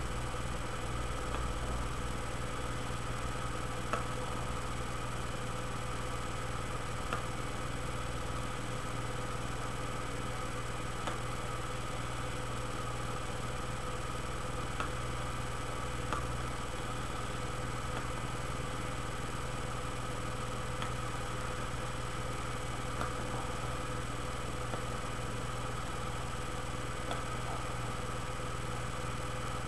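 Steady, even hum with faint high-pitched tones, like a fan or electrical noise, broken now and then by a few faint clicks.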